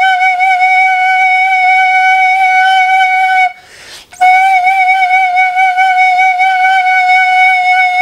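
Danso, the Korean vertical notched flute, sounding two long held notes at the same pitch, the first breaking off about three and a half seconds in and the second starting after a short breath; the pitch wavers slightly as each note begins.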